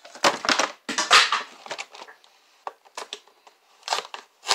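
Kitchen handling noises: two short rustling scrapes, then a scatter of light clicks and taps as food containers and packaging are handled.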